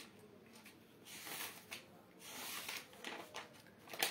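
Faint rustling and handling noises close to the microphone, coming in soft swells, with one sharp click near the end.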